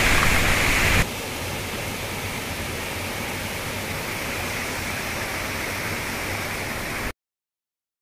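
Steady rushing of a waterfall. It drops to a lower level about a second in and cuts off abruptly to silence near the end.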